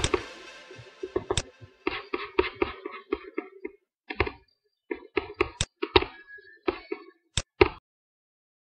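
An electronic beat stops as playback is paused, its tail fading over about a second. Then come irregular light clicks and taps of a computer mouse and keyboard in short runs with brief gaps, ending about a second before the end.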